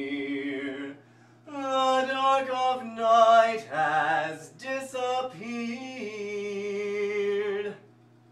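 A man singing unaccompanied, without clear words, in several phrases with held, wavering notes and a short break about a second in, stopping shortly before the end.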